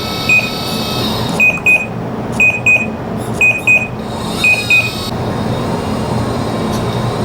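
RC excavator's electronic warning beeper sounding short high double beeps about once a second, over the steady hum of the model's motor running. The beeping stops about five seconds in while the hum carries on.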